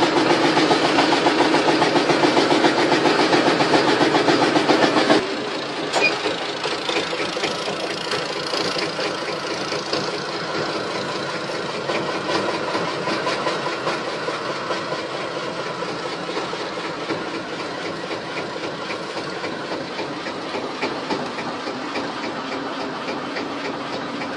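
Small river boat's engine running hard, then throttled back about five seconds in to a quieter steady run with a rapid even beat as the boat slows towards the jetty.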